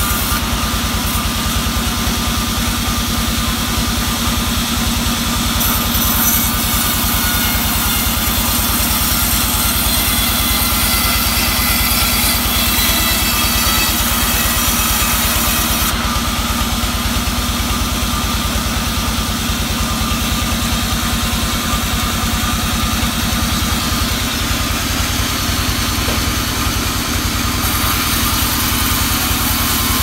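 Vertical band saw running steadily while ripping an albasia log lengthwise into boards, the machine's even drone and the blade's cut carrying through without a break.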